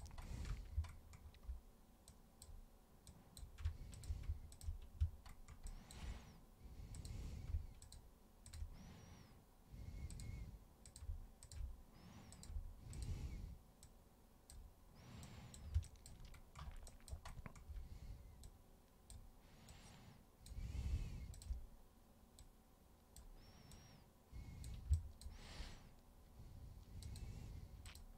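Computer mouse clicks and keyboard key taps, scattered and irregular, with soft low thumps now and then.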